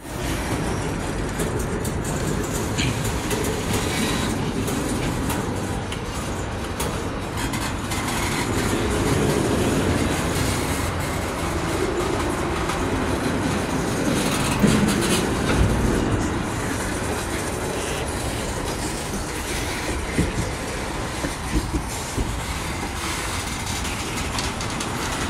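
Freight cars of a mixed freight train (an open-top hopper, then tank cars) rolling past close by. Their steel wheels on the rails make a steady rumble, broken by occasional sharp clicks and clanks, most about halfway through and again around twenty seconds in.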